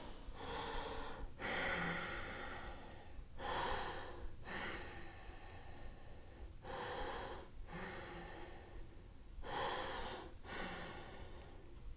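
A woman's slow, deep breathing as she holds a yoga stretch: about eight audible breaths in and out, each lasting one to two seconds.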